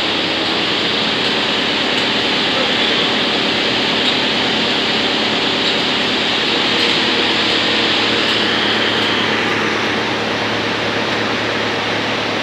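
YBX218 wood chipper running steadily on a test run, a loud even machine noise with a steady hum, its tone shifting slightly about nine seconds in.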